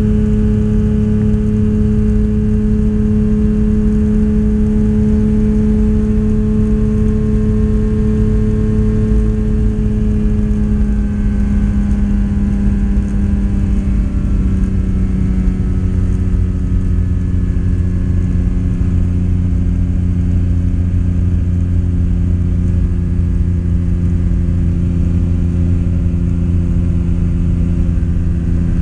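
Kitfox light aircraft's engine and propeller running steadily in flight, heard from inside the cockpit. The engine note drops slightly in pitch about halfway through, then holds steady.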